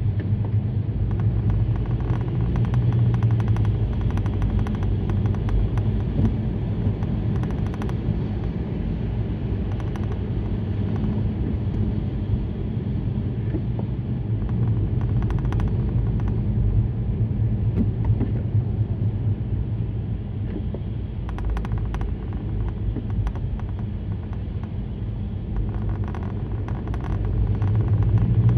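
Steady low rumble of a car being driven, heard from inside the cabin: tyre and engine road noise with a few faint ticks.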